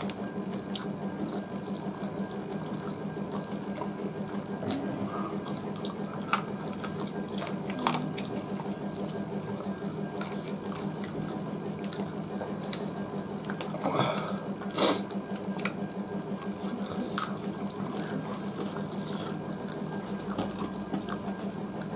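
Fingers mixing rice and curry on steel plates and eating by hand: wet squelching and smacking, with short clicks of fingers and food against the metal here and there, loudest about two-thirds of the way through. A steady low hum runs underneath.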